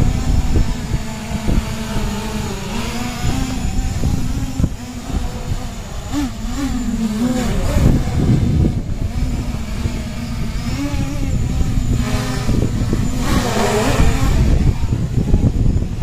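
7-inch FPV quadcopter's motors and propellers buzzing in flight, the pitch wavering and swooping with the throttle, with a hard rising burst of throttle near the end.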